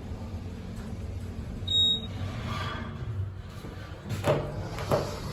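Elevator cab arriving: the steady hum of the travelling car, then a single high electronic arrival chime about two seconds in, followed by the doors sliding and two short knocks near the end.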